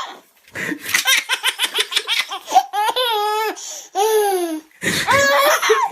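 A child laughing hard: quick runs of high-pitched giggles broken by a couple of long, falling squeals.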